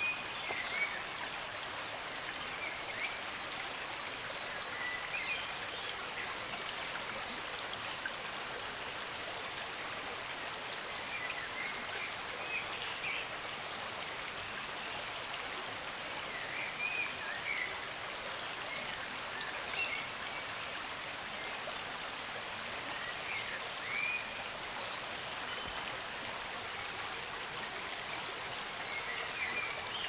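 Shallow stream babbling steadily over stones, with a songbird singing short chirping phrases every few seconds.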